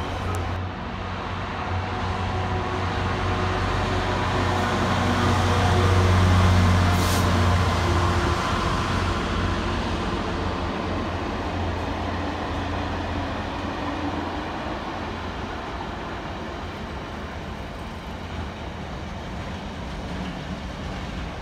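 Container freight train passing through on a far track: a steady rumble of wagons, with a low drone that grows louder to a peak about six seconds in and then slowly fades.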